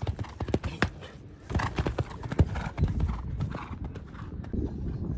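A horse's hoofbeats at a canter, a run of low repeated thuds on sand arena footing.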